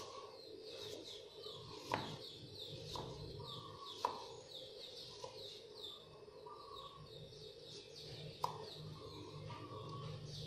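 Kitchen knife slicing through ginger onto a wooden chopping board: a few sharp knocks about two seconds apart. Birds chirp steadily in the background.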